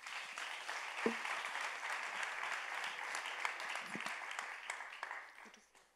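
Audience applauding, a dense patter of clapping that dies away about five seconds in.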